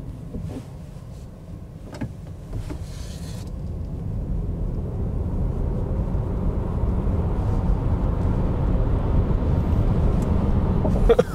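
Cupra Born VZ electric car accelerating hard, heard from inside the cabin: road and tyre noise grows steadily louder as speed builds, with a faint rising electric-motor whine. A few light clicks sound in the first couple of seconds.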